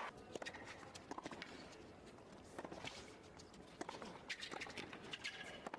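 Tennis ball struck by rackets and bouncing on a hard court, a serve and then a rally: a string of sharp pops at irregular intervals.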